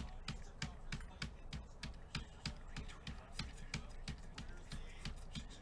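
Computer keyboard tapped in a steady run of sharp clicks, about three to four a second.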